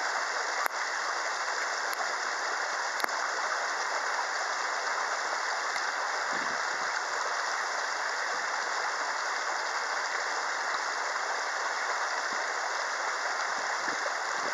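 Steady, even rushing hiss, with a few faint clicks in the first few seconds.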